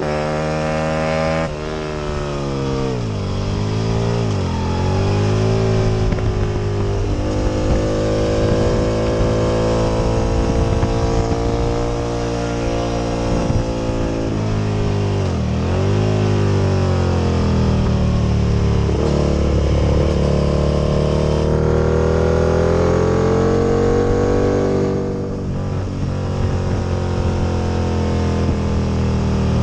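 Aprilia RSV Mille V-twin motorcycle engine at race pace, revving up through the gears with quick upshifts. Twice the revs drop sharply and climb again, about 4 and 15 seconds in, as the bike brakes and downshifts for a corner and then accelerates out. The engine briefly eases off near the end.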